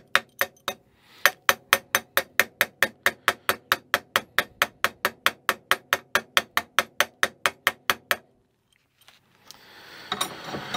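Steady metallic clicking from hand tools working on an aluminum 3D-printer frame, about five clicks a second, with a short break about a second in. The clicking stops about eight seconds in, and light handling noise of the metal frame follows near the end.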